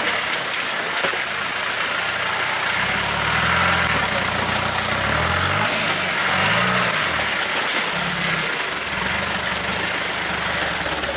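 Land Rover Defender off-roader's engine working at low speed as it crawls over rocks through a stream bed, its note rising and falling several times in the middle. Rushing water runs throughout.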